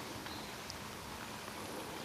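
Light rain falling on a pond's surface: a faint steady hiss with a few scattered soft ticks.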